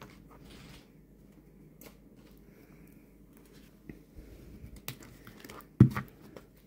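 Tarot cards being handled on a cloth-covered table: faint sliding and small clicks of card stock. A sharp knock comes near the end as the deck is picked up.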